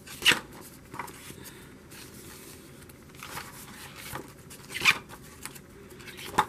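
Paper pages of a spiral-bound planner being turned by hand: five or so quick swishes and flaps a second or two apart, the loudest just after the start and about five seconds in.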